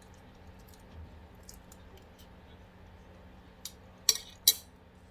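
Tableware clinking: a few faint clicks, then three short sharp clinks near the end, the last two loudest, as utensils and dishes are handled at a meal.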